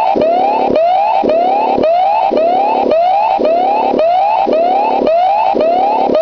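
Warning alarm sound effect: a loud electronic whoop that sweeps up in pitch, repeating about twice a second over a steady buzzing tone.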